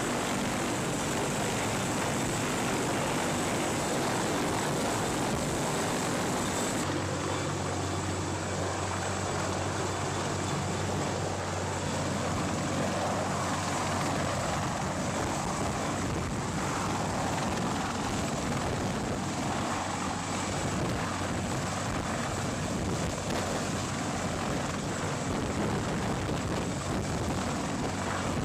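Sikorsky CH-53 heavy-lift helicopter hovering low overhead: steady turbine and rotor noise with rotor-wash wind. About seven seconds in the sound shifts, losing its high hiss and gaining a steady low hum.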